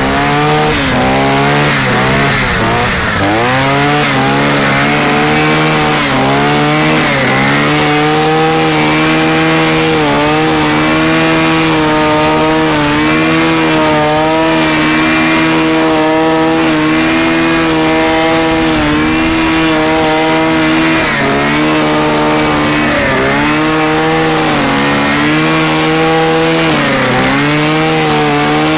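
BCH 400 T petrol brushcutter with a trimmer head, running at high throttle while cutting grass. The engine pitch repeatedly dips and rises as the throttle is eased and opened again, most of all around three seconds in and in the last several seconds.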